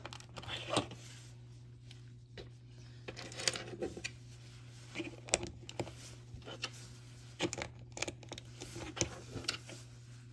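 Plastic Lego bricks and tiles clicking and tapping as they are handled and pressed onto each other: scattered light clicks every second or so, over a faint steady low hum.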